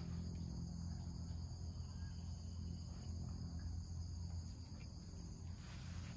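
Insects chirring steadily in a continuous high drone, over a low steady rumble.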